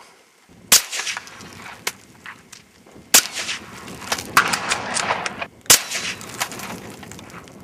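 Three shots from a bolt-action Ruger American .22 Long Rifle firing CCI Stinger rounds, about two and a half seconds apart, with smaller clicks and knocks between them.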